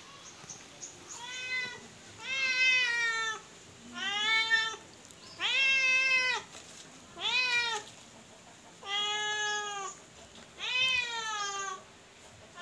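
Domestic cat meowing repeatedly: seven drawn-out meows about one and a half seconds apart, each rising then falling in pitch, the first one fainter.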